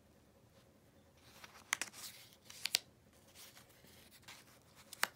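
Paper cut-out letter circles being lifted off and handled over a paper sheet: a few light clicks and faint rustles of paper.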